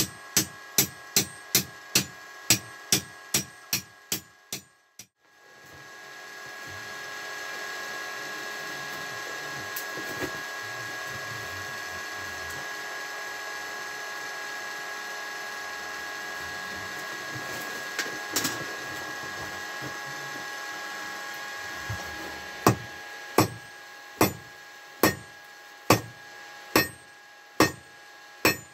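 Hand hammer striking hot iron on an anvil, quick blows at about two to three a second, fading out in the first few seconds. Then a steady whirring hum with a few fixed tones, the forge's air blower running while the iron reheats, with an odd knock. Near the end the hammering starts again at about one ringing blow a second.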